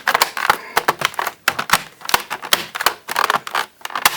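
Rapid, irregular plastic clicks and taps as the RAM compartment cover is worked back onto the underside of an Acer Aspire 5315 laptop.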